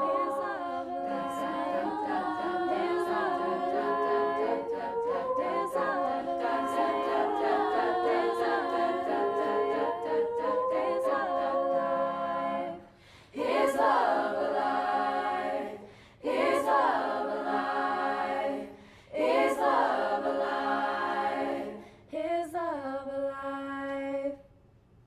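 A cappella vocal group singing in close harmony without instruments. Long sustained chords give way to four separate held chords with short breaks between them, and the singing ends shortly before the close.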